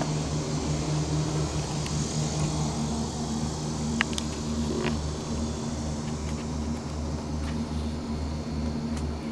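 Steady low mechanical hum holding a few constant low tones over a throbbing rumble, with one short click about four seconds in.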